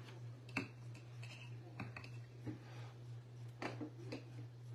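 Light clicks and taps of a rigid plastic toploader card holder being handled and set into a clear acrylic display stand, half a dozen separate small knocks, over a steady low hum.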